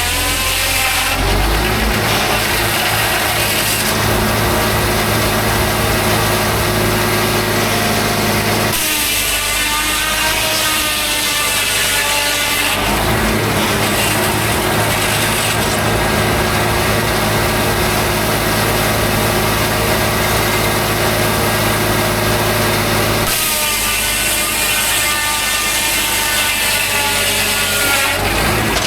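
Homemade circular sawmill blade cutting through a large white pine log, a loud, steady sawing noise. Twice it gives way for a few seconds to a pitched machine running sound with no cutting.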